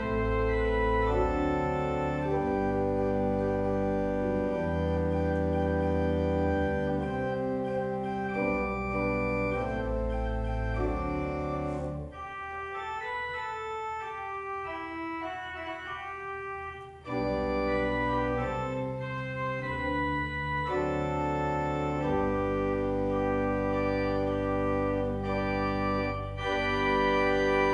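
Church organ playing slow, sustained chords over a deep pedal bass. About twelve seconds in the bass drops out and the music turns softer and thinner for several seconds, then the full sound returns.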